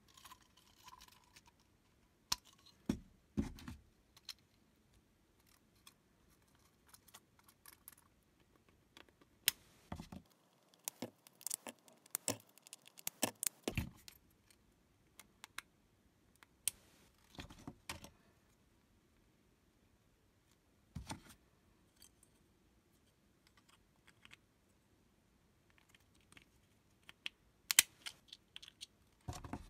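3D-printed plastic hex tiles and pins clicking and knocking as they are handled, pulled apart and set down: scattered sharp clicks in clusters with pauses between, the loudest near the end. A faint hum from the spinning spinner dies away in the first second.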